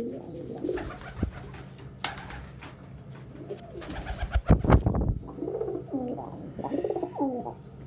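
Pigeons cooing in low, rolling calls, at the start and again for a couple of seconds near the end. A few sharp knocks come in between, the loudest about halfway through.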